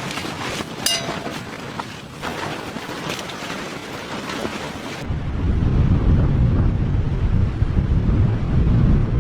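Snowstorm wind. About halfway through it changes abruptly to a heavy, low rumble of wind buffeting the microphone.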